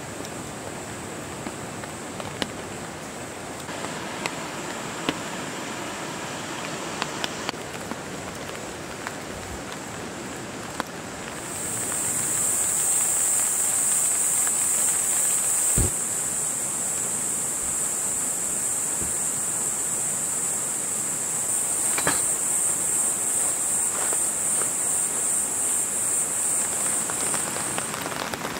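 Steady rain falling, with scattered drops ticking sharply in the first half. About twelve seconds in, a loud, steady high hiss joins the rain, and a single dull thump sounds a few seconds later.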